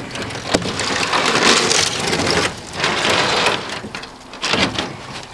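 Scrap-wood boards scraping and knocking as they are handled and loaded, in three rough stretches of scraping noise with scattered knocks.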